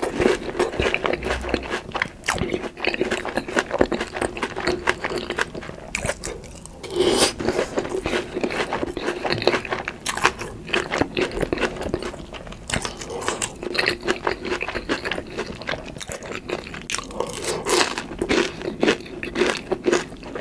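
Close-miked eating: repeated crunchy bites and wet chewing of breaded, deep-fried food, with small mouth clicks.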